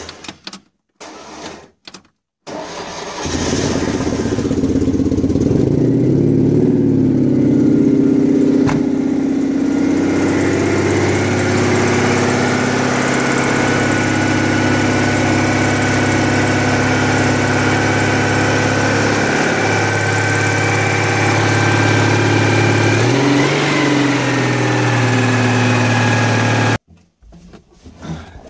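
Citroën 2CV air-cooled flat-twin engine with a worn starter: a few short cranking bursts, then it catches about three seconds in and runs. It revs up for a few seconds, settles to a steady run with one brief blip near the end, and is switched off about two seconds before the end. The exhaust is noisy because its rear silencer box is cracked.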